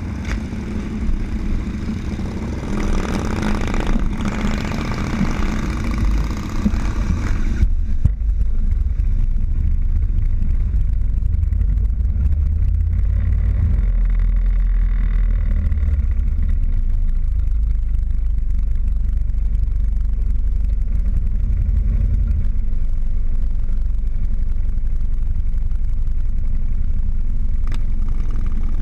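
Motorcycle engines running as the bikes roll along at low speed, heard from a camera mounted on one of them: a steady low rumble, with a hiss over the first several seconds that stops abruptly about eight seconds in.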